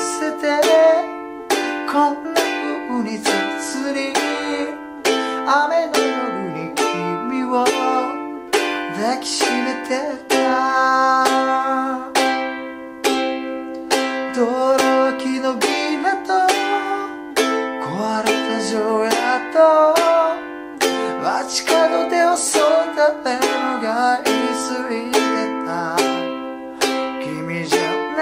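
A man singing a slow ballad in Japanese while strumming chords on a soprano ukulele, moving through progressions such as Dm–G7–Em7–Am and C–G7–Am–G7 in a steady rhythm.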